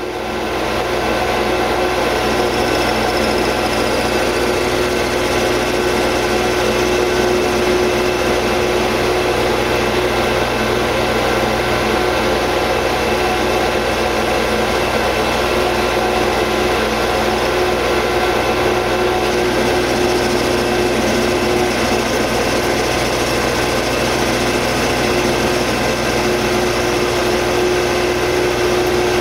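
Metal lathe running steadily while a carbide insert tool faces the end of a 2.5-inch bar of 1144 Stressproof steel, a constant machine hum with a steady tone through it.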